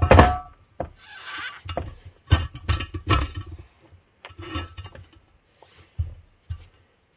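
Irregular metal clinks and knocks as a Mazda 13B rotor housing is handled on the front iron and a dowel is worked into its dirty dowel hole, with a rag rubbing on the metal briefly about a second in.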